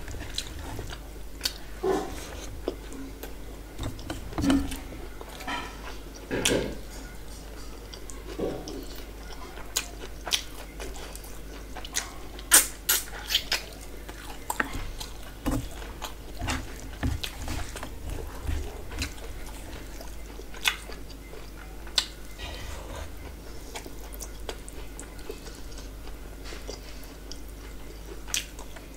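Close-miked eating by hand: chewing and wet mouth clicks and smacks as rice and curry are eaten, with fingers working rice on a steel plate. Short sharp clicks come irregularly throughout.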